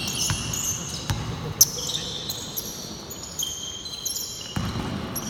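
Basketball game sounds on an indoor court: repeated high sneaker squeaks on the floor and a few sharp ball bounces, with scattered voices.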